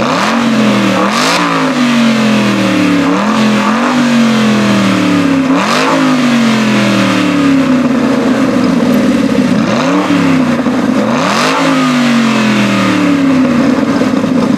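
Aston Martin V8 Vantage's V8 engine revved hard while parked: about six sharp blips through the exhaust, each rising quickly and falling slowly back toward idle.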